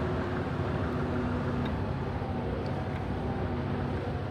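A steady low engine drone with a constant hum and no change in pitch, with two or three faint ticks over it.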